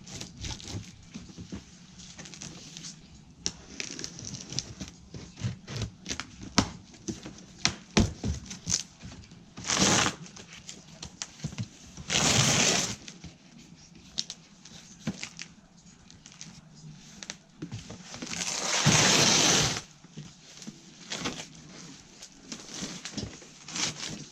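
Packaging of a table saw being opened and handled: cardboard and plastic rustling and crinkling, with many small knocks and clicks. Three louder, longer rushes of noise stand out, about a second each, near the middle and about three-quarters of the way through.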